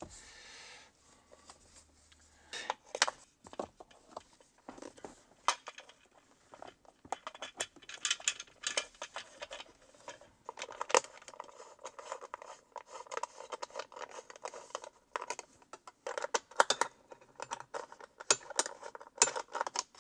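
Hands handling a Tesla touch screen and its swivel-mount bracket: irregular clicks, taps and scraping of plastic and metal parts, with the sharpest clicks a few seconds in and in clusters near the end.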